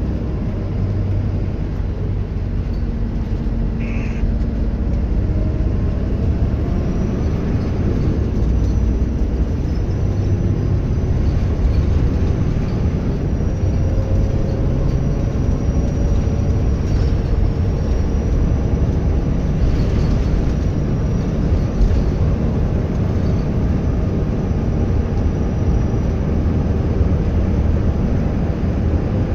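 Bus engine and road rumble, with a high, thin turbocharger whistle that comes in about seven seconds in and holds steady, wavering slightly in pitch.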